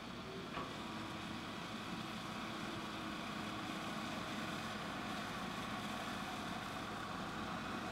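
Komatsu PC220 crawler excavator's diesel engine running steadily under working load as the boom lifts a bucket of dirt.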